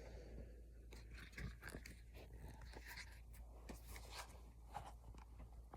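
Faint handling noises: scattered small clicks and crinkles as hands try to work a plastic accessory onto a pistol grip.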